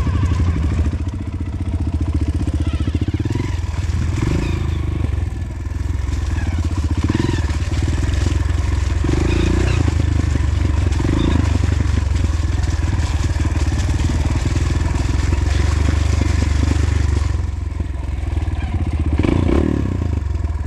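Honda CRF150L trail bike's single-cylinder engine running at low, steady revs, with a few brief swells of throttle.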